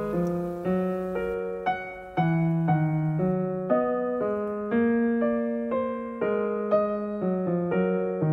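Background piano music: a gentle melody of single notes changing every half second or so.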